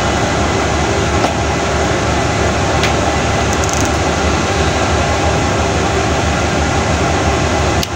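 Steady drone of a ship's machinery on deck: a constant low hum under a loud, even rush of noise, with a couple of faint clicks in the first few seconds.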